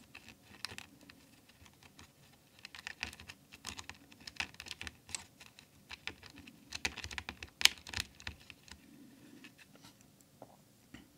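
Irregular light plastic clicks and taps from a clicky blue mechanical keyboard switch being handled and pressed while hand cream is worked into it as a lubricant.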